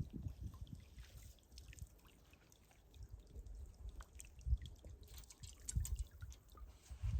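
Water dripping and trickling in small scattered drops, with irregular low thumps.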